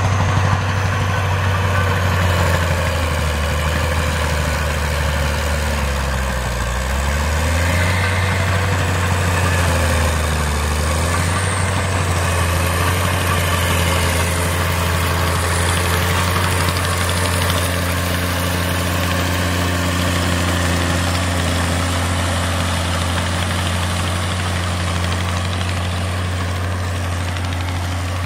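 Caterpillar D6C crawler tractor's diesel engine running steadily under load as it drags a cultivator through hard-packed soil. Its pitch sags twice, around six and ten seconds in, then comes back up.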